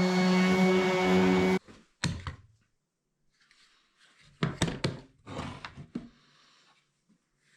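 Background music that cuts off about a second and a half in, followed by a few dull thunks in small clusters with quiet between them.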